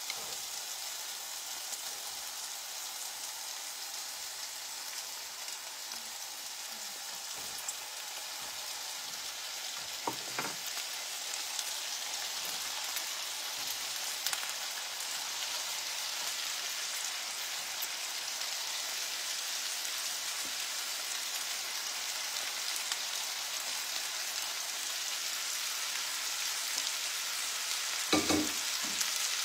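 Aromatics sizzling in oil in a frying pan while sliced bitter melon is tipped in: a steady frying hiss that grows slightly louder, with a few knocks, the loudest near the end.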